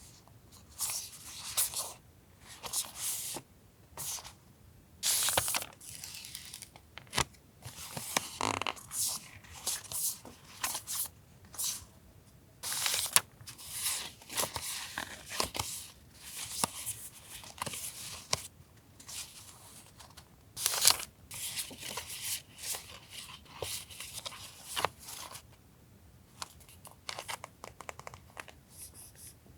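Paper stationery and its packaging being handled: short rustling, crinkling and tearing-like strokes, a few a second, with brief pauses between.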